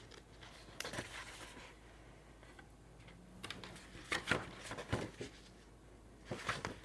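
Paper pages of a paperback book being handled and turned: several soft rustles and light taps.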